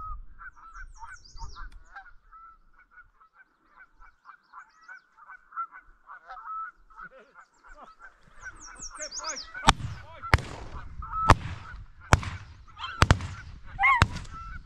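Geese honking over and over in short repeated calls. In the last third the honks grow louder and are punctuated by about six sharp clicks, roughly one a second.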